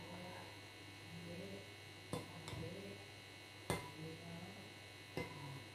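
Metal spoon stirring condensed milk and coconut milk in a ceramic bowl, clinking sharply against the bowl about four times, over a faint steady hum.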